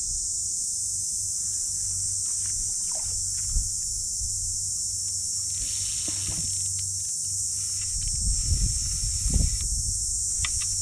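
Steady high-pitched insect chorus over a low rumble, the rumble growing louder and gusting about eight seconds in.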